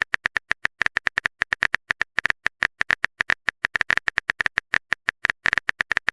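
Keyboard-typing sound effect: a fast, uneven run of short, sharp clicks, about nine a second.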